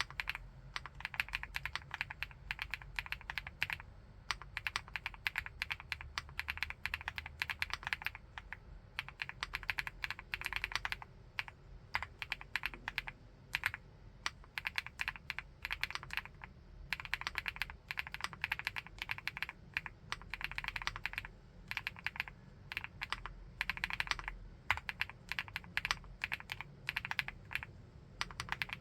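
Steady fast typing on a 75%-layout full-aluminium keyboard, a dense run of keystroke clicks broken by brief pauses every few seconds.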